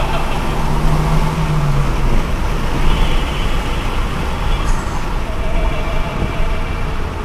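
Rover 25 GTi 1.8 VVC on the move, heard from a phone held out of its window: steady road and tyre noise with wind rushing over the microphone, and the engine's low hum standing out for a second or so near the start.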